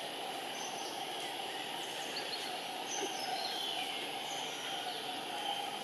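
Steady outdoor forest ambience: a constant hiss-like drone with short high bird chirps every second or so and one falling whistled note a little after halfway.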